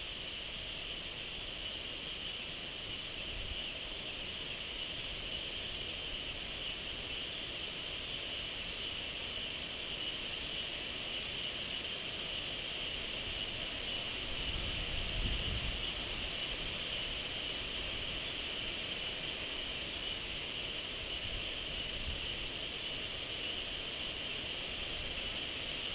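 Steady high-pitched chorus of night insects in forest, with a brief low rumble about fifteen seconds in.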